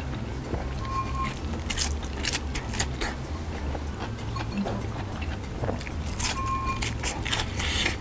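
Crisp crunching and chewing of deep-fried breaded shrimp and fried chicken, the crunches coming in clusters about two seconds in and again about six to seven seconds in, over low background music.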